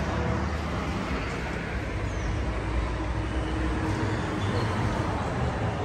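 Steady rumble of road traffic and vehicle engines.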